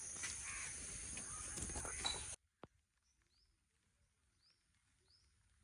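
Outdoor field ambience: a steady high hiss over a low rumble of wind or handling, which cuts off abruptly about two and a half seconds in. After that it is near quiet, with a few faint, short bird chirps.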